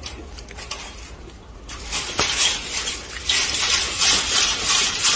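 Rattling and rustling of a chain-link fence as monkeys clamber on it. The noise grows louder after about two seconds, with a sharp click shortly after.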